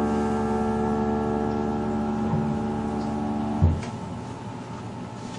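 Grand piano's final chord ringing and slowly fading, then damped off abruptly about three and a half seconds in with a low thump, leaving only faint room noise.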